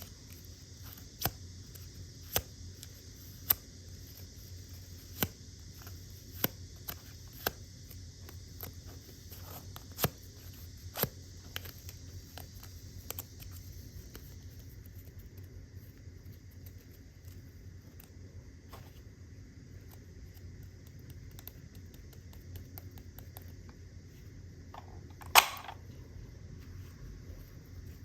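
Light, sharp clicks and taps of small plastic toy pieces being handled and set down, about one a second for the first dozen seconds, then sparser, with one louder clack near the end, over a steady low hum.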